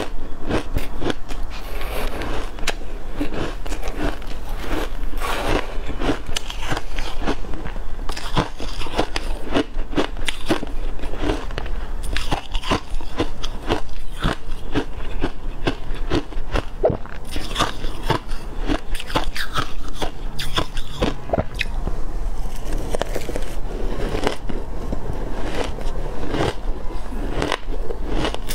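Close-miked crunching and biting of shaved ice eaten by the spoonful: a dense, continuous run of crisp crackles and crunches.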